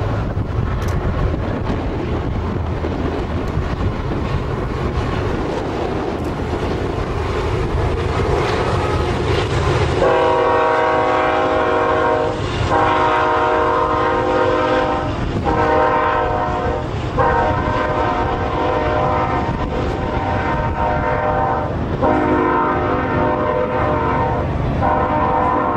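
Diesel freight locomotives of a BNSF double-stack train rumbling by with wind noise. About ten seconds in, a multi-chime locomotive air horn starts sounding a series of long blasts with short breaks between them.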